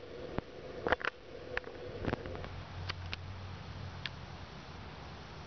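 A series of short, sharp clicks and soft knocks, about eight scattered over the first four seconds and strongest about a second in, over a faint steady low hum.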